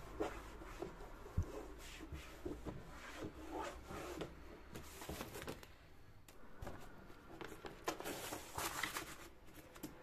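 A cloth rubbed in short strokes over the bottom of a wooden drawer, with light knocks against the drawer and one sharper knock about a second in. Near the end come louder rustling bursts as a liner sheet is laid in and smoothed down.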